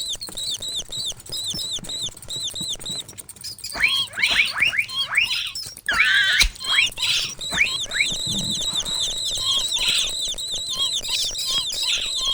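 Mouse squeaking sound effects: a quick run of short, high chirps, about four or five a second, joined by a string of louder, falling squeaks about four seconds in and more squeals from about six seconds on.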